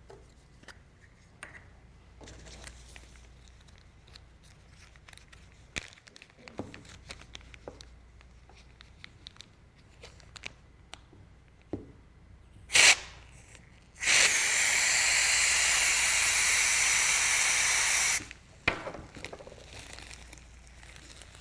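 Liquid butane sprayed from a can into a plastic zip-top bag: a short hiss about 13 seconds in, then a steady hiss lasting about four seconds that cuts off suddenly. Before and after it come faint plastic crinkles and small clicks as the bag is handled and pressed shut.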